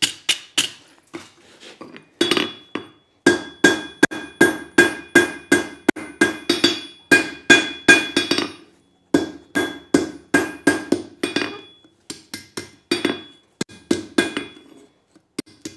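Hand hammer striking red-hot leaf-spring steel on an anvil, squaring up the end of a chisel blank. The blows come about three a second in several runs with short pauses between them, and each blow leaves a bright metallic ring from the anvil.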